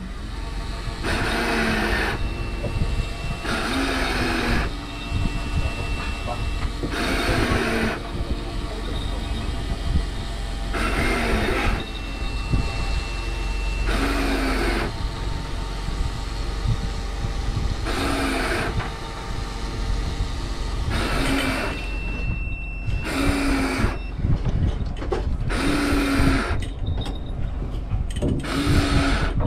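Fishing reel being cranked in short spurts about every three seconds as a hooked fish is pumped up from the deep, over a steady low hum.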